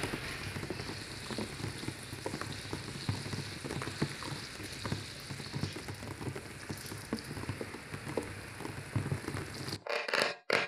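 Burst electrolytic capacitor sizzling and crackling, with many small pops, as electrolyte boils and spits out of its ruptured top. Just before the end the sizzle stops abruptly and a louder, choppier crackling begins.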